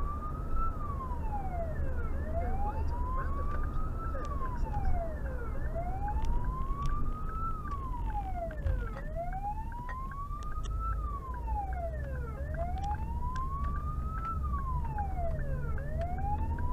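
Emergency vehicle's own siren on a slow wail, heard from inside the cab. Each cycle rises slowly, drops faster and repeats about every three and a half seconds, five times over. A steady low engine and road rumble runs underneath.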